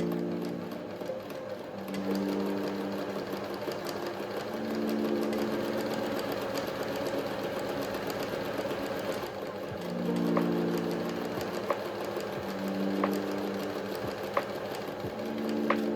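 Pfaff Tipmatic 6110 sewing machine running steadily, stitching at a fast even rate, with soft background music.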